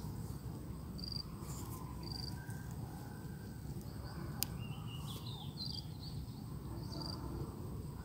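Rural outdoor ambience: a steady low rumbling noise with a few short high chirps, a brief warbling trill about five seconds in, and one sharp click just before it.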